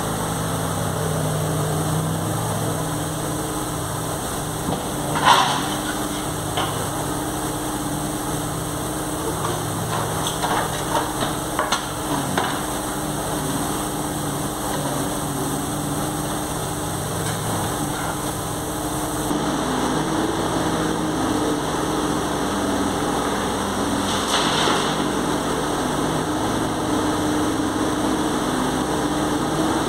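JCB 803Plus mini excavator's diesel engine running steadily while its bucket digs into broken concrete rubble. There is a sharp clank about five seconds in, a run of smaller knocks a few seconds later and another knock near the end.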